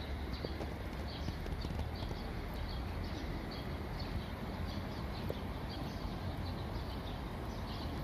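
Footsteps walking on paved ground, about two steps a second, over a steady low outdoor rumble.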